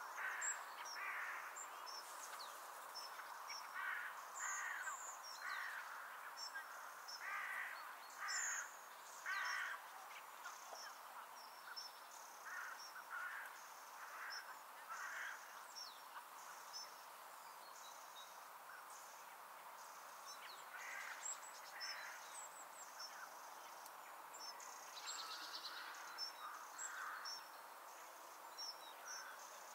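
Crow-family birds cawing in several runs of short, repeated calls, with thin high chirps of small birds over a faint steady rural background hiss.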